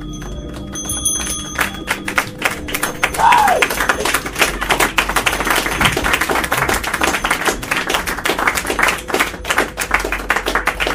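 A small audience clapping at the end of a live dark ambient set, dense and irregular, as the last steady drone tones die away in the first couple of seconds. A short falling whistle or cry is heard about three seconds in.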